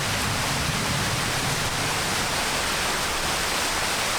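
Waterfall splashing into its pool close by: a steady, even rush of falling water.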